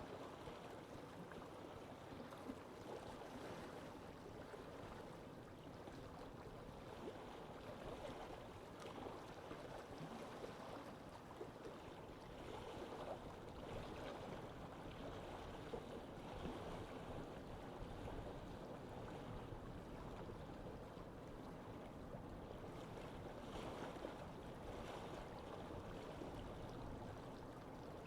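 Lake ambience: small waves lapping and splashing steadily at the water's edge.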